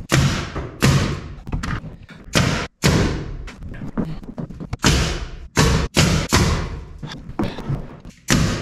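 A series of about ten heavy, irregularly spaced thuds and knocks on wood, some coming in quick pairs.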